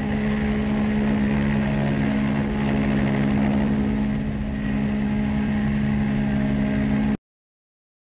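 Ship's horn of the liner MV Britannic sounding one long, steady blast over a low rumble. It cuts off abruptly about seven seconds in.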